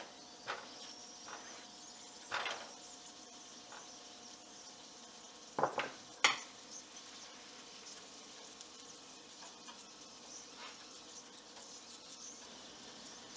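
Buttered paratha frying on a hot non-stick tawa, a faint steady sizzle, with a few clicks and knocks from a silicone spatula against the pan; the sharpest knock comes about six seconds in.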